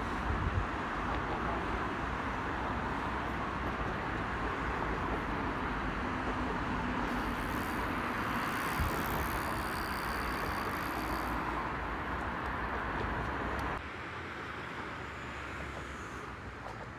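Steady road traffic noise, an even hiss and rumble of passing cars. It drops suddenly in level about fourteen seconds in.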